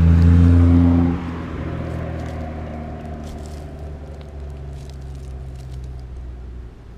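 A car drives past on the street, its engine loudest in the first second and then fading away. Faint crackling rustles of dry leaves follow.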